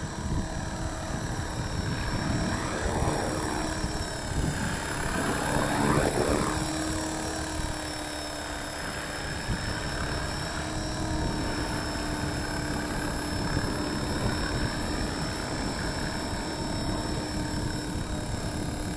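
Walkera V450D03 RC helicopter hovering in strong wind: a steady tone from its rotor and motor, over low rumbling wind noise on the microphone, with a brief swell about six seconds in.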